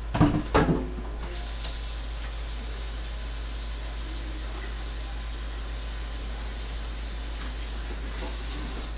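Kitchen faucet running into a sink with a steady hiss while a plastic cutting board is rinsed under it, after a couple of short knocks in the first second.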